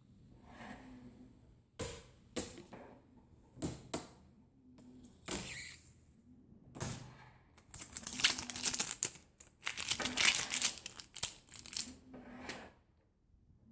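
Protective plastic film being peeled and crinkled off a new microwave oven: a string of short crackling tears, then a longer stretch of dense crinkling about eight seconds in.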